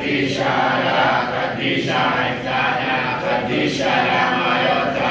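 Church congregation of children and adults singing together in unison, in phrases broken by short breaths about every two seconds.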